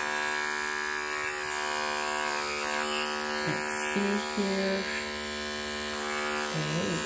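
Andis Envy Li cordless hair clipper's rotary motor running steadily with an even electric hum, its blade buzzing. A brief click about four seconds in.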